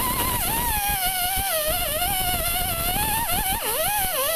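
Air-powered grinder fitted with a coarse buffing wheel, whining as it roughens the rubber of a truck tyre's sidewall. Its pitch wavers and dips several times as the wheel is pressed harder into the rubber.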